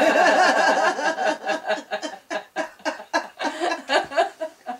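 Several women laughing together: a loud burst of mixed laughter at first, then breaking into quick, rhythmic pulses of laughter.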